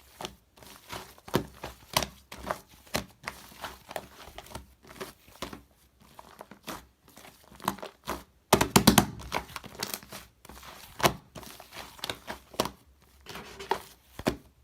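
Slime with shaving foam mixed in being squished and stretched by hand: a run of sticky pops and crackles, with a louder burst of pops about eight and a half seconds in.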